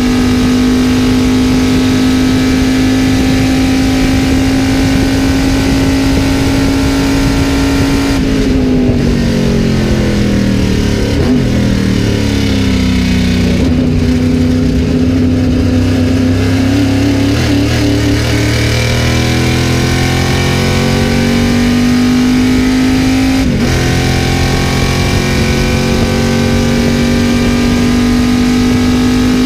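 Greenwood Corvette race car's V8 heard from inside the cockpit. It holds a steady high note at full throttle, then drops in steps through downshifts with a throttle blip while braking hard. It pulls through the slower section and climbs through the gears, with a quick upshift and back to a steady flat-out note near the end.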